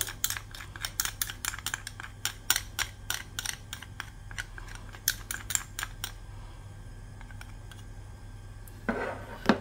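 Metal spoon clicking and scraping against a small ceramic bowl while honey is scraped out of it, a quick run of light clicks, about three or four a second, that stops about six seconds in.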